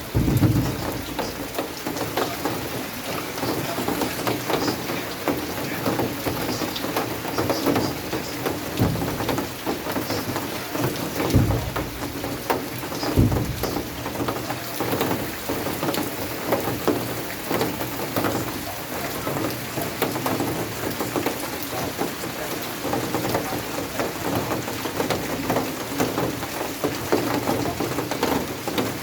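Steady heavy rain falling, a dense patter of drops splashing on surfaces. A few brief low thumps stand out, the strongest about eleven and thirteen seconds in.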